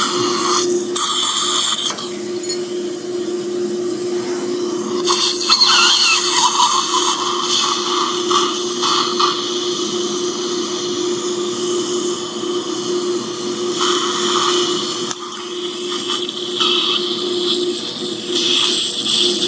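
Surgical suction aspirator running steadily, with a constant hum and a hiss that swells several times as the tip draws up blood and saliva from the extraction site.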